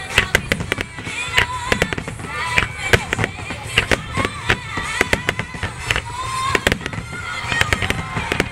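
Fireworks display: aerial shells and barge-fired effects going off in quick succession, a dense run of sharp bangs and crackles.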